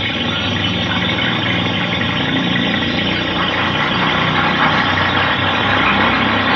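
Steady mechanical engine-like drone with a low hum underneath, getting slightly louder about four seconds in.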